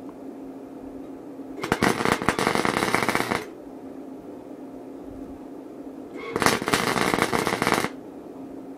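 Wire-feed welder laying two short welds, each about a second and a half long, the arc crackling and buzzing as it welds a brace onto a stainless steel wire basket. A steady low hum runs between the welds.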